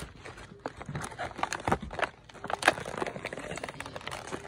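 Clear plastic blister packaging of a toy pack crinkling as hands open it, in many irregular sharp crackles.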